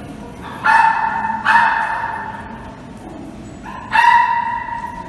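A dog barking three times: two high-pitched barks close together in the first second and a half, and a third about four seconds in, each trailing off slowly in the hard-floored room.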